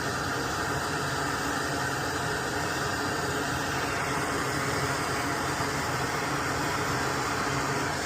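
A small electric blower or fan motor running steadily, a whirring hiss. Its tone shifts slightly about four seconds in.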